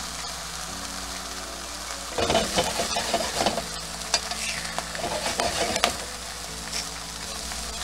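Canadian bacon slices sizzling in a stainless steel skillet. From about two seconds in, metal tongs scrape and click against the pan as the slices are moved, for about four seconds.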